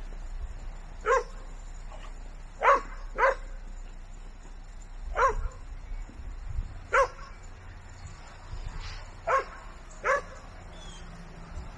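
A dog barking: about seven short, sharp barks at uneven intervals, some in quick pairs, over a low steady background rumble.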